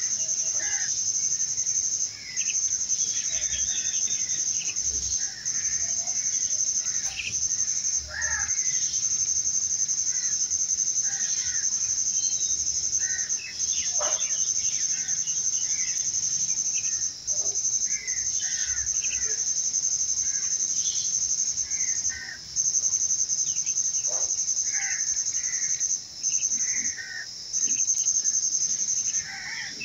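A continuous high insect trill that breaks off briefly every few seconds, with scattered short bird chirps.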